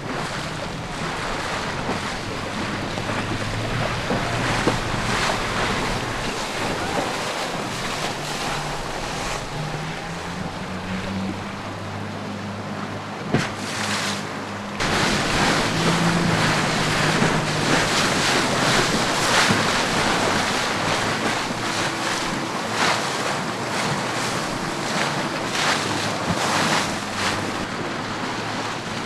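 Wind buffeting the microphone and water rushing and splashing past the hull of a sailing yacht under way, heeled over in choppy sea. About halfway through, the noise steps up suddenly and stays louder.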